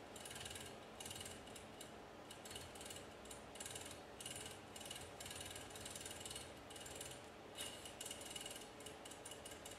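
Quanser rotary inverted pendulum's servo motor and gearbox whirring faintly in short, irregular bursts as the controller jerks the arm back and forth to keep the pendulum balanced, with a thin high tone that comes and goes.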